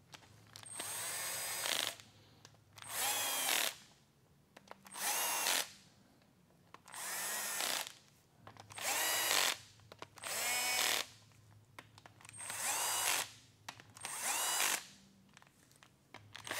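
Bosch cordless drill/driver with its clutch set low, running cam tower cap nuts down onto their studs one after another. There are about eight short bursts, each a second or so long, in which the motor spins up and winds down. The nuts are only being brought to touch, not yet torqued.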